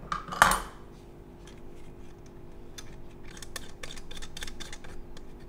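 A Nikkormat FTN's all-metal SLR body handled with cloth gloves: one sharp metallic clack with a short ring about half a second in, then a run of small clicks and rustles as the camera is picked up and turned.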